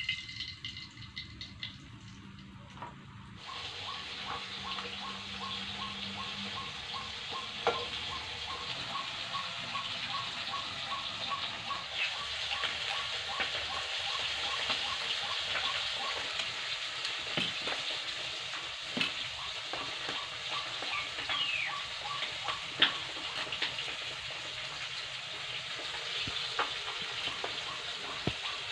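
Hot oil sizzling steadily in a black iron wok over a wood fire, getting louder about three seconds in, with scattered sharp clicks and a run of faint, even ticks.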